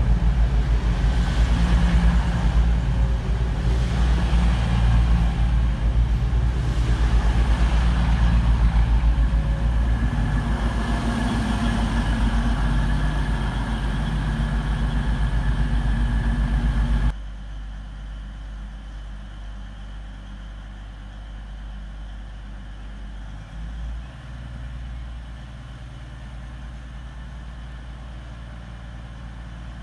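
Underfloor diesel engines of an East Midlands Railway Class 222 Meridian running loudly and steadily close by, with a deep engine hum. About two-thirds of the way through, the sound cuts off abruptly to a much quieter low rumble.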